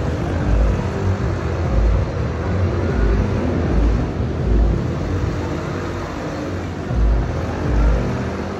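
Amusement park ride running: a loud low rumble with heavy deep thumps recurring roughly every second, with music mixed in.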